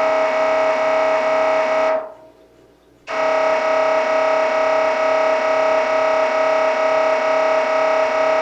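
MRI scanner running a scan sequence: the gradient coils make a loud, steady electronic buzz at one pitch, with a faint regular pulse in it. It stops about two seconds in and starts again about a second later.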